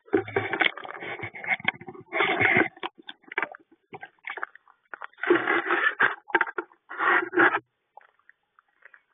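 Handling noise from a wooden bluebird nest box, heard from inside the box: a jacket sleeve and hands rustle, scrape and knock against the wood in irregular bursts, with a short lull near the end.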